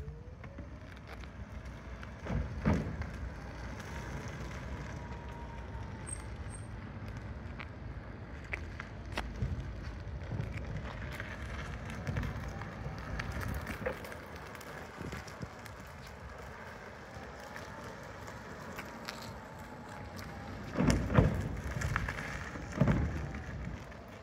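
2021 Vmoto CPA electric motorbike's electric motor whining as it rides, its pitch rising and falling as it speeds up and slows down, over tyre and wind noise. A few loud low thumps come near the end.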